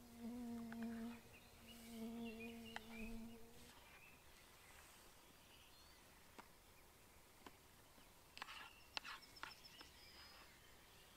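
A low, steady hum in two stretches over the first four seconds, one short and one about two seconds long. Then quiet open-air ambience with a few faint ticks, and a short cluster of clicks and thin high chirps near the end.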